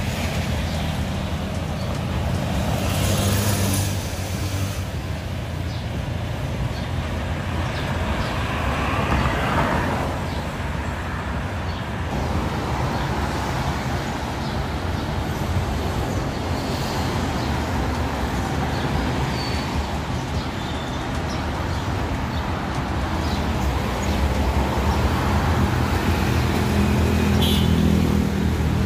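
Busy city road traffic: a steady rumble of cars, pickups and motorcycles driving past, swelling as individual vehicles go by, loudest near the end.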